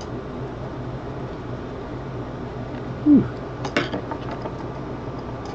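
A small Phillips screwdriver clicks and clinks as it is set down on a hard desk, a quick cluster of sharp clicks about three and a half seconds in, over a steady low hum. A short murmur of a voice comes just before the clicks.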